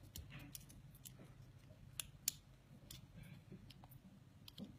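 Faint metallic clicks and small scrapes as a steel nail clipper is worked apart by hand, with a few sharper clicks around the middle.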